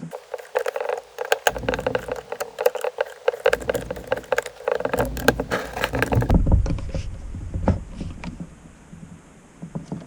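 Dense, irregular clicking and rattling of small metal starter-motor parts being handled and fitted together by hand, with some low knocking, thinning out over the last few seconds.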